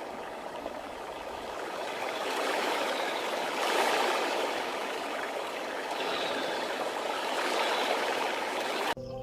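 Steady rushing of running water, like a stream, cut off abruptly near the end.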